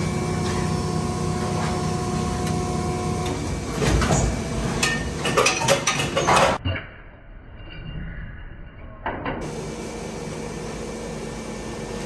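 Plastic injection moulding machine running: a steady mechanical hum with a thin whine for the first few seconds, then a run of clunks and rattles about four to six seconds in. The sound then drops and turns dull for a few seconds before the steady hum returns.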